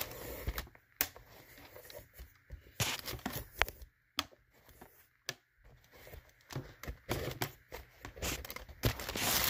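Handling noise from a sneaker being turned over in the hands: irregular rustling and scuffing with scattered sharp clicks.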